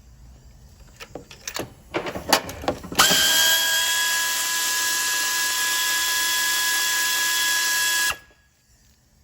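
A few clicks and knocks of tool handling, then a power tool running steadily for about five seconds with a hissing whine before cutting off suddenly, spinning out one of the Fiat 500's spark plugs.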